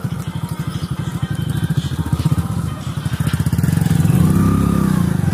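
Motorcycle engine running under way, a fast steady pulsing of the exhaust, growing louder about four seconds in.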